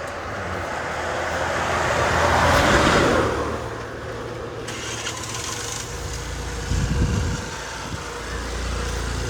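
A road vehicle passing close by, its noise building to a peak about three seconds in and then fading. A shorter low rumble follows near the end, over steady traffic noise.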